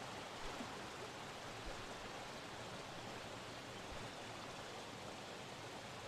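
Shallow stream running over flat rock slabs: a faint, steady rush of water.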